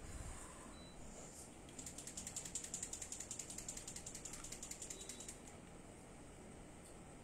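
A rapid, even run of ratchet-like clicks, about ten a second, starting about two seconds in and lasting some three and a half seconds.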